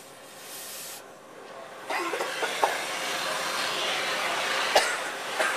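Cutting torch's flame hissing, then starting a louder rushing burn about two seconds in, with two sharp pops near the end.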